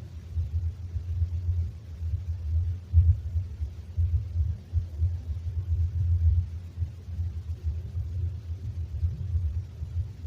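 Low, loud rumbling noise that surges and dips irregularly, which the uploader says is a recording being played very loud.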